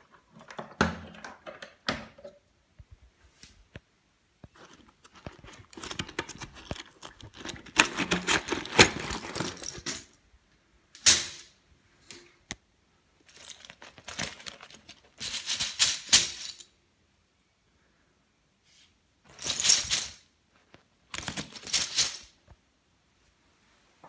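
Plastic clicks and knocks from a canister vacuum cleaner's body and lid, then several short bursts of paper rustling and scraping as the full paper dust bag is pulled out of its compartment by its cardboard collar.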